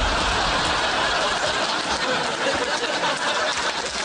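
Studio audience laughing, dipping slightly near the end.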